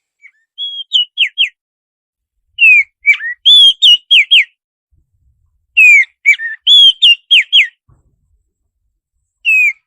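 Songbird singing a master (masteran) song of the kind used to train caged birds: clear whistled notes, many sliding downward in pitch, in quick phrases of several notes repeated every few seconds.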